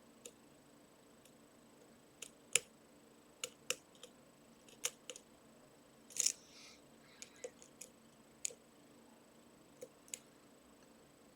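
A lock pick and tension wrench working the pins of a Trioving 55-series pin-tumbler lock: irregular sharp metallic clicks, about fifteen of them, with a short scrape a little past six seconds in.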